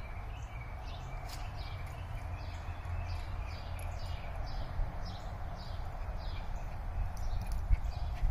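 Outdoor ambience: a bird repeating a short falling chirp about twice a second over a steady low rumble.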